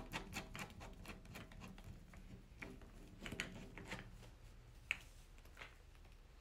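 Caster wheel being twisted by hand into a plastic cage leg: faint clicks and rubbing, close together in the first second, then a few scattered clicks.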